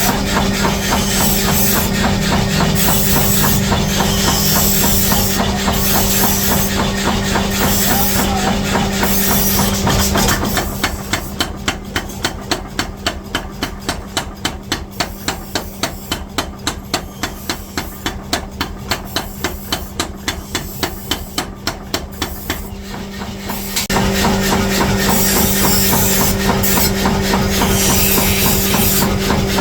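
Rapid, evenly spaced hammer blows on steel, about five a second, for some thirteen seconds in the middle. Before and after them, a steady workshop machine hum with a low tone.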